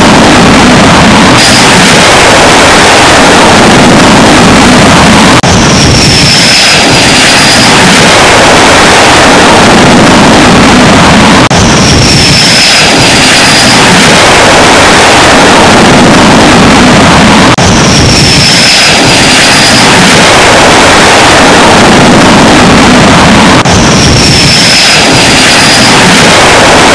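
Loud, steady jet engine roar, repeating in an identical loop about every six seconds, with a brief high whine that falls slightly in each cycle.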